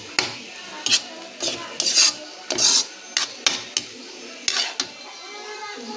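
Metal spoon scraping and clinking against a metal wok while stir-frying shredded bamboo shoots: a dozen or so irregular scrapes and clicks that stop about a second before the end.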